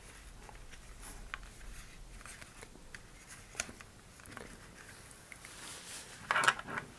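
Faint rustling and small scattered clicks of parachute shroud lines and a model-rocket nose cone being handled as the line loop is threaded through the nose cone's loop. A brief, louder rustle comes near the end.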